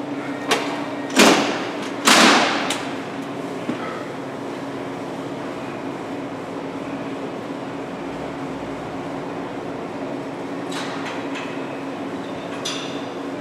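Metal clanks from a plate-loaded leg press as the sled is set down: three hits in quick succession within the first couple of seconds, the last two the loudest and ringing. A steady hum runs underneath, with a few faint clinks near the end.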